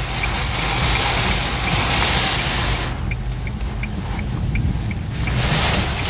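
Heavy rainstorm mixed with the steady noise of a vehicle, with a faint regular ticking about twice a second. About three seconds in, the high hiss of the rain falls away and the lower rumble carries on.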